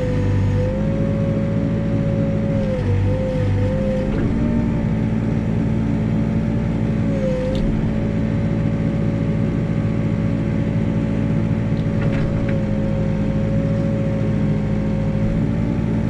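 Backhoe's diesel engine running steadily at working throttle, its pitch sagging briefly a few times as the hydraulics take load.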